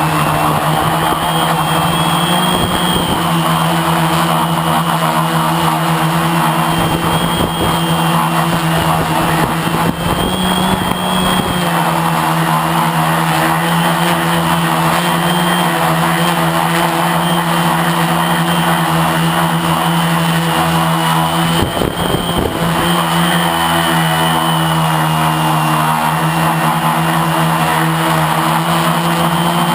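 Lotusrc T380 quadcopter's electric motors and propellers running in flight, a steady loud whine built from several tones. The pitch lifts briefly about ten seconds in, and a short rougher patch comes about two-thirds of the way through.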